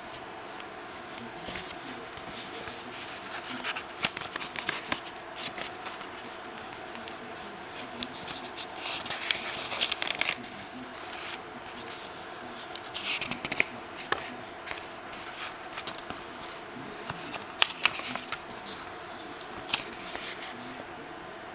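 Crisp paper pages of a handmade journal being turned and handled: crinkling, rustling and sharp little snaps of paper in irregular bursts.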